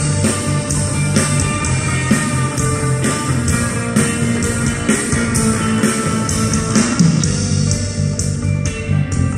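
Indie rock band playing live: an instrumental passage of electric guitars over bass and a steady drum beat, without vocals.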